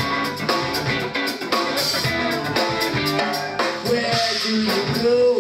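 Live rock trio playing through a PA: electric guitar and bass over a steady drum-kit beat, with a voice singing a line near the end.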